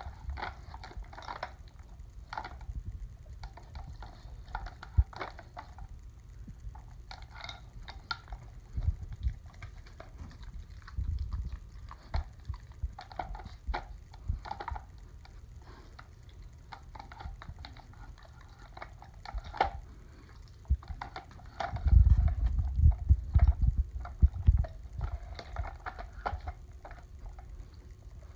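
A dog nosing and pawing at a plastic treat-puzzle toy, spinning its blue plastic cylinders on their bar so they knock and rattle in irregular clatters. About three-quarters of the way through there is a busier stretch of heavier thumps and rattling.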